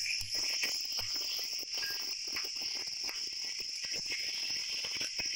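Spatula stirring and scraping grated pumpkin cooking in ghee and sugar in a nonstick pan, making many short scrapes and taps. A steady high-pitched background tone runs underneath.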